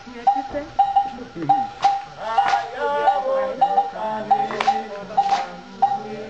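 West African drum ensemble playing: a short high ringing stroke repeats about twice a second over loud drum strikes, and voices sing briefly in the middle.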